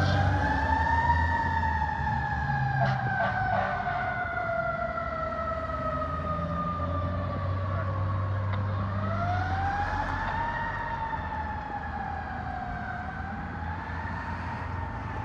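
Federal Q2B mechanical siren on a fire ladder truck, winding up and slowly coasting down in long wails, gradually fading, over the low rumble of the truck's engine.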